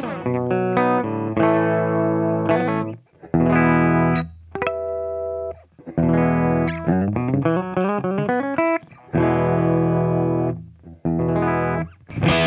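Electric guitar played through a Wampler Ego compressor pedal into a Kemper-profiled Marshall amp: single notes and chords ring out with long, even sustain. The phrases are split by a few brief gaps.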